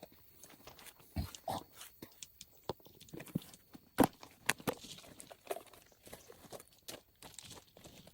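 Irregular clicks, taps and knocks, the sharpest one about four seconds in.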